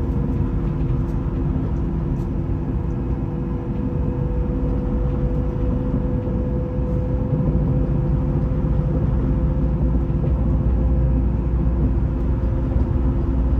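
Vy passenger train running: a steady low rumble with a steady hum above it.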